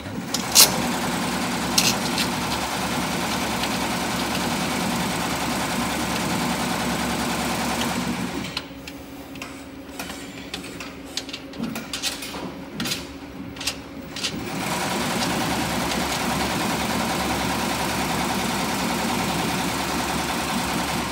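Commercial embroidery machine stitching at a steady rapid rhythm; it stops about eight seconds in and starts stitching again some six seconds later. During the pause, small clicks and knocks of cable connectors being handled come through.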